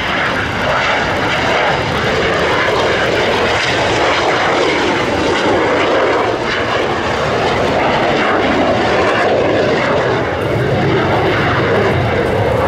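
Jet engines of the Frecce Tricolori's Aermacchi MB-339 aircraft flying a display manoeuvre: a loud, steady jet noise that swells slightly as they pass.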